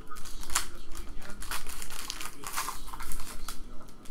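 Foil wrapper of a Panini Prizm trading-card pack crinkling and tearing as it is pulled open by hand, in an irregular run of sharp crackles.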